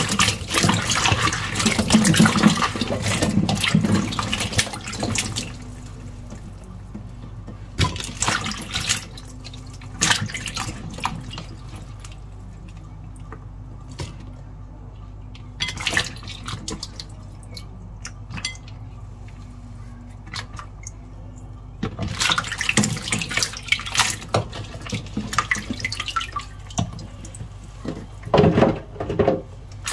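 Water running from a sink tap in several rushes of a few seconds, with quieter gaps between, as bell peppers are rinsed under it.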